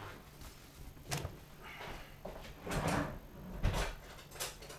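Kitchen drawer opened and rummaged through for a knife: a few scattered knocks and clatters.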